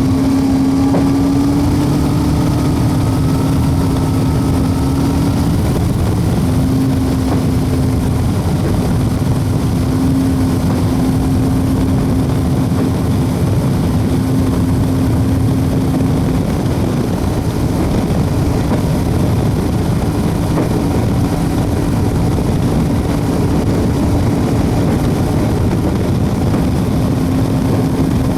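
Small homebuilt WAR Corsair replica's piston engine and propeller running steadily during a fast taxi, a held engine tone wavering only slightly in pitch.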